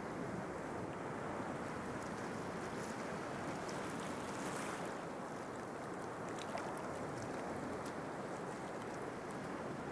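Steady rushing of Baltic sea surf washing onto a sandy beach, with faint scattered splashing crackles.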